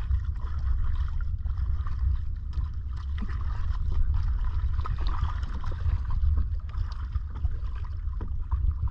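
Small wooden outrigger canoe being paddled on open sea: water splashing and lapping at the hull with the paddle strokes, under a steady low rumble of wind on the microphone.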